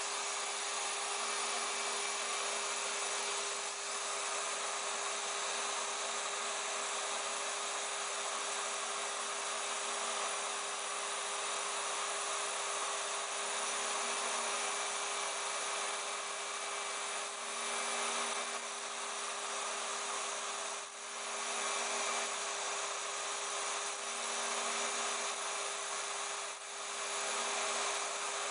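CNC router spindle running steadily with a constant whine while its end mill cuts pockets into Depron foam. A lower hum comes and goes, and the sound dips briefly twice in the second half.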